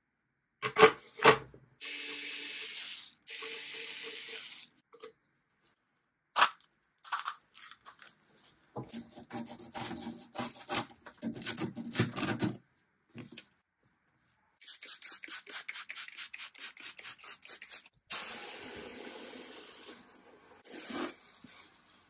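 A run of furniture-restoration sounds: two sharp knocks, two hissing bursts about a second each, then old wood veneer being scraped and torn off a tabletop in rough strokes, followed by quick regular scraping strokes about five a second. Near the end comes the hiss of a steam iron pressed onto a damp cloth over the veneer.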